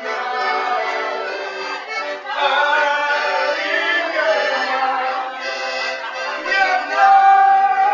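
Accordion playing a tune, growing louder about two seconds in.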